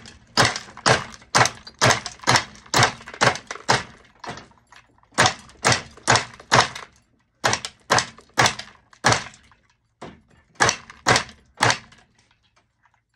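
Star murrine glass cane being chopped into thin slices by a flywheel-driven cutting machine: sharp clacks about three a second, in runs broken by short pauses.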